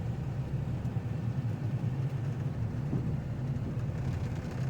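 Truck engine running with a steady low rumble as it pulls on a fallen tree branch tied on with jumper cables.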